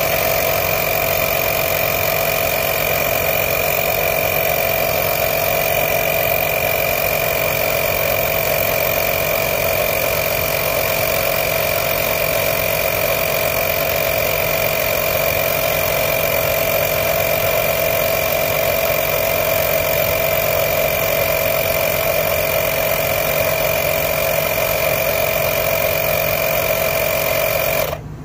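Greenworks 24V battery air compressor running steadily while inflating a truck tire: a constant motor-and-pump drone with a clear steady whine in it. It cuts off abruptly near the end.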